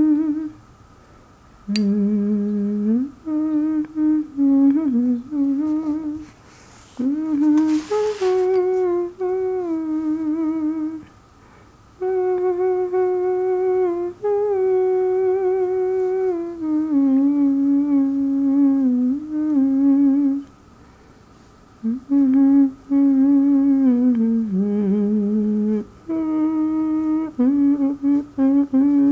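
Someone humming a slow, wandering melody in long held notes that glide from pitch to pitch, in phrases broken by short pauses.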